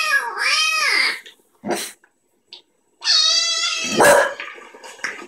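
Dog making long, drawn-out howling whines that slide up and down in pitch, two long calls with a short yelp between them and a sharper bark-like accent inside the second call.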